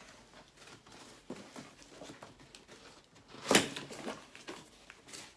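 Packaging being handled and pulled open: scattered rustles and light knocks, with one louder, sharp noise about three and a half seconds in.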